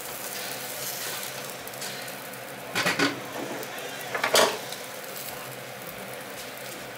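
Bread frying in a skillet, sizzling steadily, with two short clatters of metal kitchen utensils about three seconds and four and a half seconds in.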